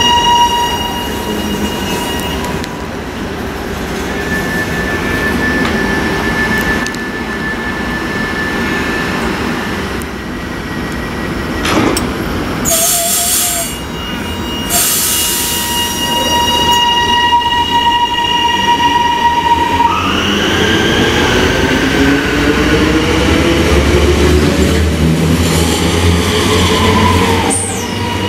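High Capacity Metro Train, an electric suburban train, standing at the platform with a steady electronic tone sounding and short bursts of air hiss near the middle. From about twenty seconds in it pulls away with a rising whine from its traction motors.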